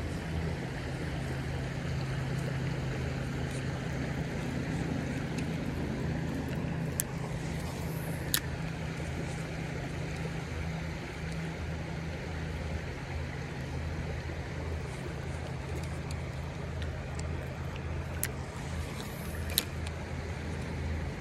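Steady rush of flowing creek water with a low rumble under it, broken by four short sharp clicks, two in the middle and two near the end.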